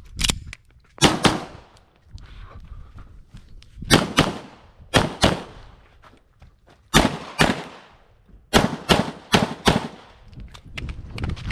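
9mm Glock 34 pistol fired in a USPSA stage: sharp shots, mostly in quick pairs, with short pauses between groups as the shooter moves from target to target, and a faster run of shots near the end.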